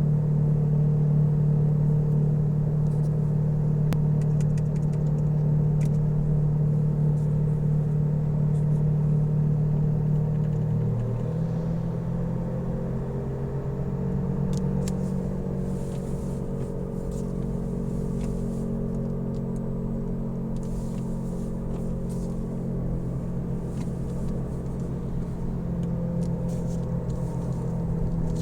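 Loud tyre noise from Falken FK510 tyres on a moving car: a steady droning hum over road rumble. Its tone shifts and it eases slightly about eleven seconds in.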